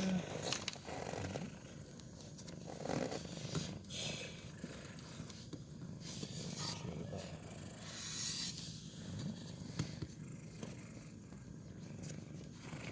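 Domestic cat purring steadily, with short hissy noises now and then.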